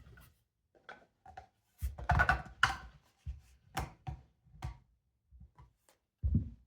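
Sections of a 3D-printed plastic shakuhachi being handled and fitted together at the joints: irregular light knocks and clatter, busiest about two seconds in, with a heavier thump near the end.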